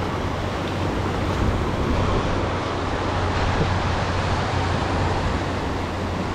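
Steady outdoor wash of wind and surf noise, with a constant low hum underneath.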